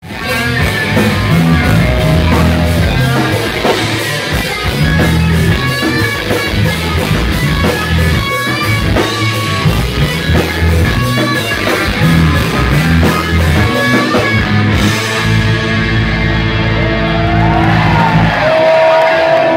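Live rock band playing loud: electric guitar, electric bass and drum kit. About fifteen seconds in the steady cymbal beat drops out and long held notes ring on.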